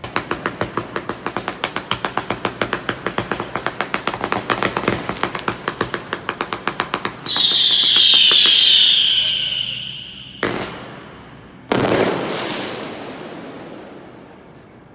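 Fireworks: a rapid string of firecracker-like pops, about eight a second, for about seven seconds. Then a loud whistling shriek falling slowly in pitch for about three seconds, followed by two bangs, the second echoing and fading away.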